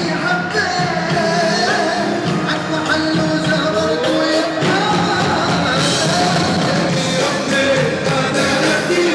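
Live Arabic pop song: a male vocalist sings ornamented, gliding lines over band accompaniment, with a long rising phrase about four seconds in.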